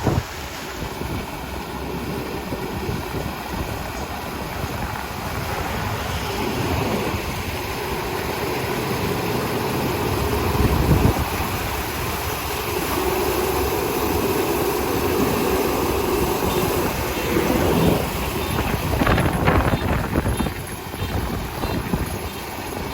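Kubota ER470 combine harvester running in a rice paddy, a steady mechanical clatter and rumble that swells louder a couple of times.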